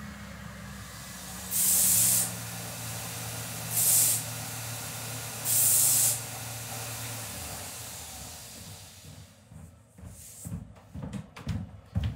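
Three short, loud hissing blasts of released gas about two seconds apart, over a steady low machine hum that fades out after about eight seconds. Near the end come scattered knocks and footsteps as a wooden board is carried in.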